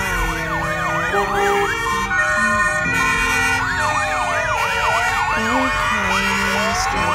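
Several emergency sirens, fire engines by the look of it, sounding together: fast up-and-down yelp sweeps of about four or five a second, with slower rising and falling wails overlapping them.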